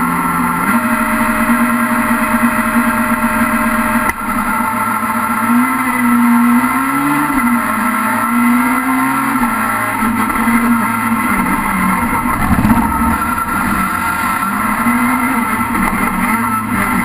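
Rallycross car's engine heard from inside the cabin. It is held at steady high revs, then there is a sudden break about four seconds in. After that the engine note rises and falls again and again as the car accelerates away and runs through the gears.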